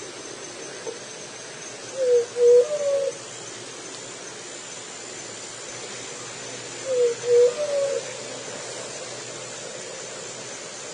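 Juriti (Leptotila ground dove) cooing: two low hooting phrases of a few short notes each, about five seconds apart.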